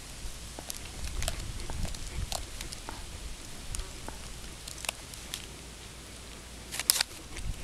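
German Shepherd gnawing a bone, her teeth clicking and cracking on it in irregular short strokes, loudest near the end.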